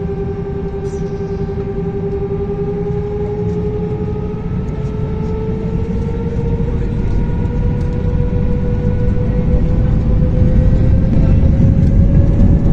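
Airbus A321 jet engines heard from inside the cabin over the wing, spooling up as thrust builds for takeoff. A steady whine rises slowly in pitch while the low rumble underneath grows louder toward the end.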